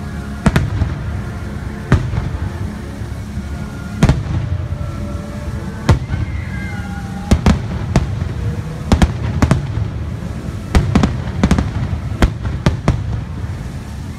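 Aerial fireworks shells bursting overhead, a dozen or more sharp bangs at irregular intervals, coming in quicker clusters in the second half.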